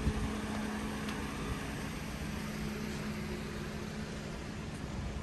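A steady mechanical hum with a low droning tone, like an idling engine or a running machine, over general street noise. There is a short knock right at the start.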